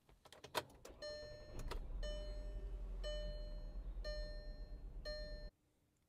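A few clicks as the key goes into the ignition, then a 2011 Volkswagen Jetta's dashboard warning chime dinging about once a second over a low steady rumble. The sounds cut off suddenly near the end.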